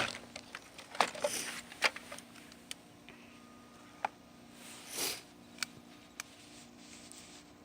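Scattered light clicks and a couple of short rustling swells, over a faint steady hum.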